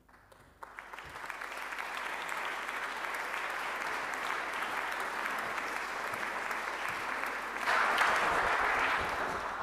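Audience applauding, building up over the first couple of seconds and swelling louder near the end.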